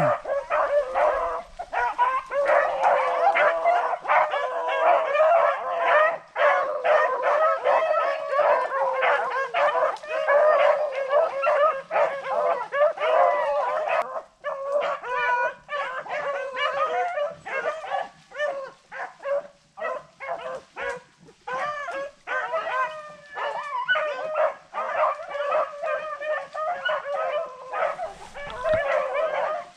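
Pack of rabbit hounds baying and yelping, many voices overlapping without a break, as they run a rabbit's track in full chase.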